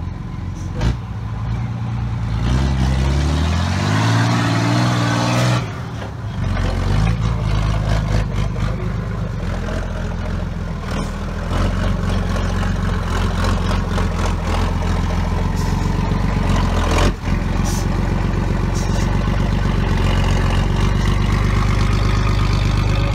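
Unimog 417's six-cylinder diesel engine running under load as the truck crawls off-road; it revs up, pitch rising, a few seconds in, then runs steadily.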